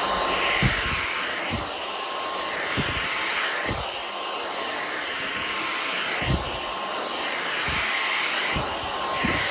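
Dyson V6 Flexi cordless stick vacuum running with a steady high whine, its level swelling and easing slightly, with soft low thumps about once a second as it is worked back and forth.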